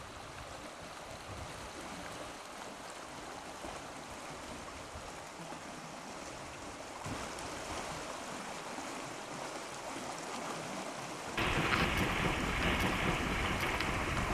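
Steady outdoor wash of flowing stream water and wind. About eleven seconds in it jumps to a much louder, steady rush that starts and stops abruptly.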